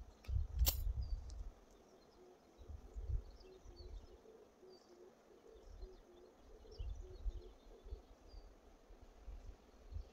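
Quiet outdoor ambience: faint bird chirps and a run of short low notes in the middle, with intermittent low rumbles and one sharp click just under a second in.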